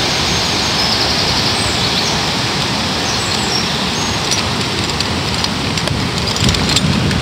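Steady loud hiss with a few faint high chirps, and scattered soft clicks from about four seconds in.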